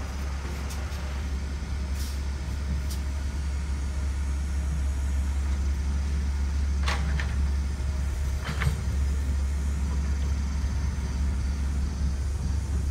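Heavy cab-over truck's diesel engine running with a steady low rumble as the truck crawls slowly over a rough dirt track, growing slightly louder as it approaches. A few brief sharp noises cut in about two, seven and eight and a half seconds in.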